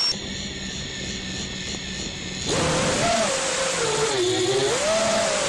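FPV quadcopter's electric motors heard from its onboard camera. At first there is a quieter high whine; about two and a half seconds in, the throttle comes up and the motors turn to a loud buzz whose pitch wavers up and down with the throttle as the quad lifts off.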